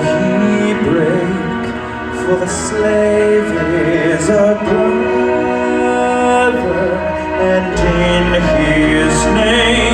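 Music with singing voices over sustained chords; a deep bass note comes in about eight seconds in.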